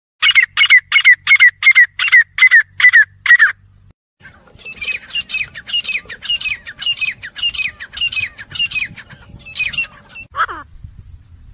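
Grey francolins calling: a run of about nine loud, sharp, evenly spaced calls, some two and a half a second, then after a brief pause a faster and softer run of calls, with a couple of single calls near the end.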